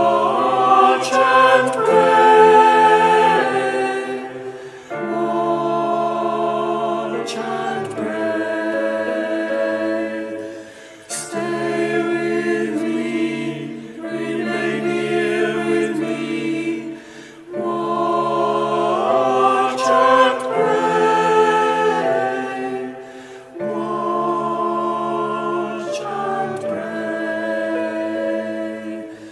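A choir singing a slow chant of held chords in repeating phrases of about six seconds, with short breaks between phrases.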